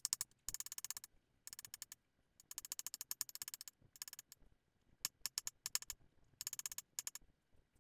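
Chef's knife rapidly mincing garlic on an acacia end-grain wood cutting board: runs of light, crisp taps, about fifteen a second, broken by short pauses.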